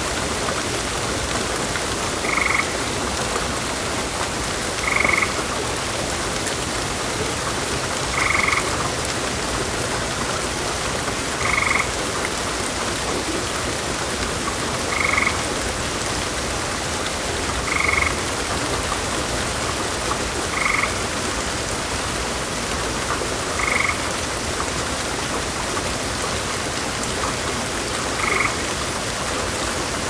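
Heavy rain falling steadily, with short frog croaks about every three seconds, nine in all.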